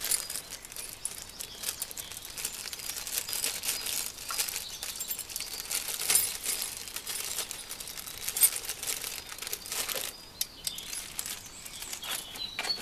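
Clear plastic packet crinkling and rustling as an Allen key is unwrapped from it. The crinkling is dense at first and thins to a few scattered crackles near the end.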